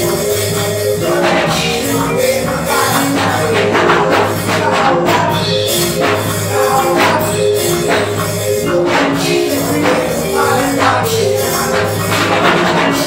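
Live worship band playing an upbeat song with a steady beat: drum kit with jingling percussion and electric keyboard carrying held chords and a pulsing bass line.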